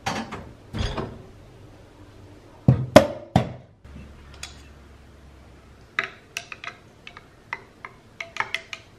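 Glass handling: a glass mug knocking on a metal espresso-machine drip tray, three loud thunks about three seconds in, then from about six seconds a quick run of light clinks of a spoon against a glass mug as a latte is stirred, the last few ringing briefly.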